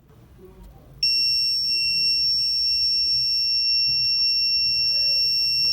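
Buzzer of an Arduino smoke alarm sounding, switching on abruptly about a second in and holding one steady, unbroken high-pitched tone: the smoke sensor has detected smoke above its threshold.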